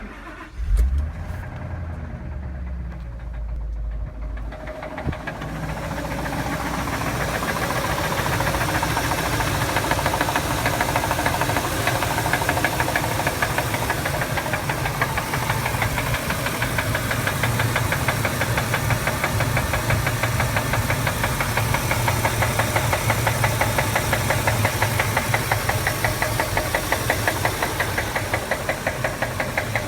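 Ford 5.4-litre Triton V8 engine starting up about a second in, then running with a steady, rhythmic knock that the owner takes for rod knock.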